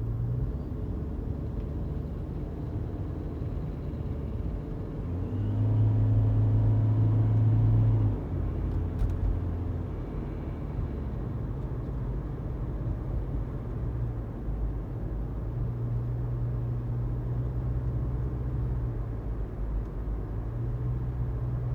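2018 Toyota Prius driving uphill: a steady low road rumble with a low engine hum that comes and goes, loudest for a couple of seconds about six seconds in.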